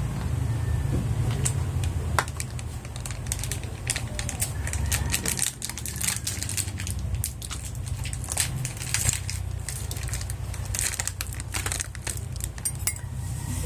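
A person eating by hand close to the microphone: chewing and mouth sounds with many small clicks and crackles, over a steady low hum.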